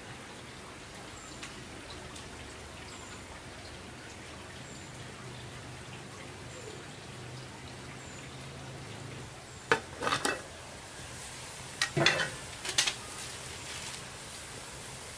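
Kitchen sounds: a steady hiss, with pots and utensils knocking a few times about ten and twelve seconds in.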